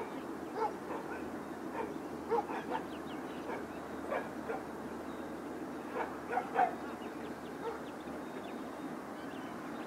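Dog barking and yipping in short, irregular bursts, often two or three in quick succession, over steady background noise.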